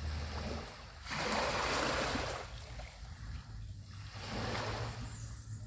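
Small sea waves washing onto a beach: one wash about a second in, the loudest, and a weaker one near the end, over a steady low hum.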